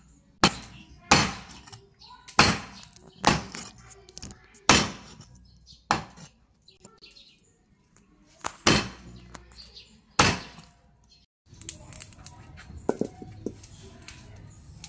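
A steel cleaver chopping raw chicken on a wooden chopping board: single heavy chops about one a second, then a gap, then two more chops. Near the end a lower steady background with light clinks takes over.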